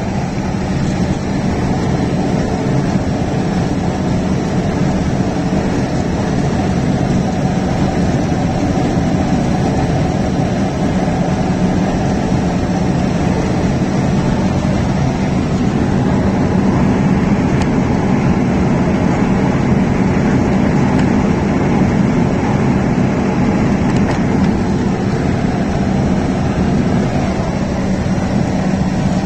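Steady engine drone and road noise from a truck cruising at highway speed, heard from inside the cab.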